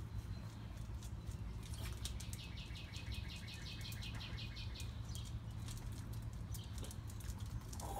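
Boston terrier pawing and scratching at a glass storm door, its claws tapping and scraping in scattered clicks. About two seconds in comes a rapid run of high chirps, some seven or eight a second, that stops a couple of seconds later.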